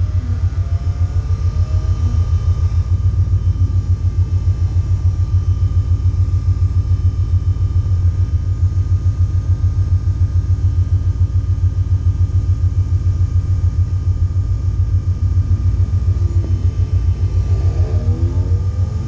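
Race car engine idling with a lumpy, even beat, heard loud inside its stripped cabin, with a steady high whine over it.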